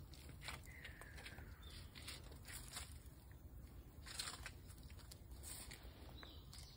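Near silence in a still pause: faint scattered rustles and small clicks, with one faint falling whistle about a second in.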